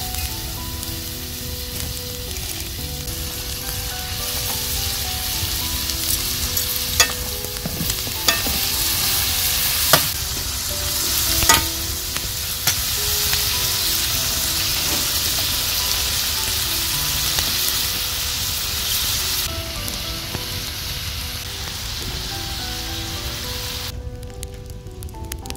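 Beef liver with onions and tomatoes sizzling steadily in a metal pan while being stirred, with a few sharp clinks of the spatula against the pan partway through. The sizzle thins and then cuts off near the end.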